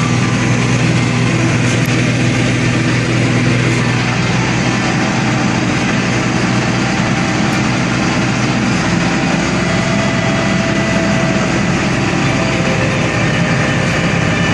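Large John Deere diesel harvest machinery running steadily under load, with a low, even engine drone and a constant rush of machine noise.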